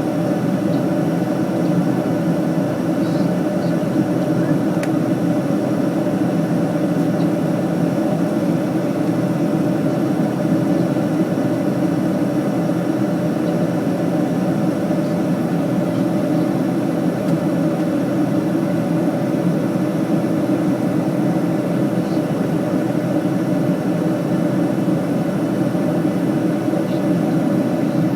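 Steady drone of an airliner cabin in flight: engine and airflow noise, even and unbroken, with a low rumbling hum.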